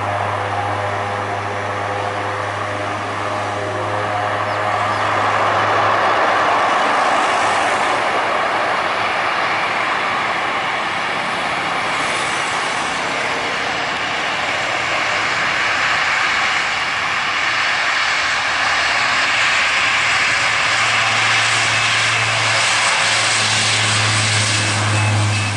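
Four turboprop engines of a Lockheed C-130 Hercules with six-bladed propellers: a steady low propeller drone, then the noise swells about six seconds in as power comes up, and the low drone grows loud again near the end as the aircraft rolls along the runway.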